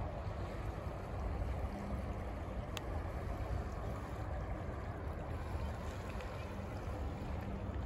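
Wind buffeting a phone microphone outdoors: a steady low rumble over a faint hiss, with a single small click about three seconds in.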